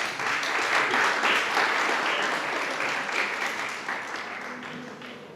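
Audience applauding, a steady patter of many hands that fades away over the last second or so.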